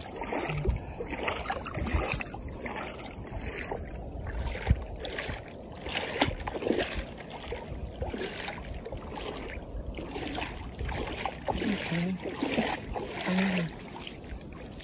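Footsteps wading through shallow water over a sandy tidal flat, splashing at a steady walking pace.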